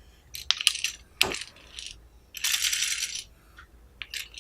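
Toy bicycle being handled: a series of sharp clicks and taps, and a brief rattle about two and a half seconds in.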